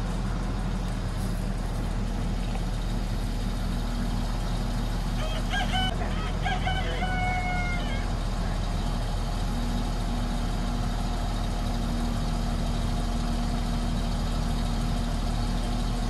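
John Deere 690D LC excavator's diesel engine running steadily as the boom holds a log in log tongs. A bird call comes about five seconds in and lasts a couple of seconds.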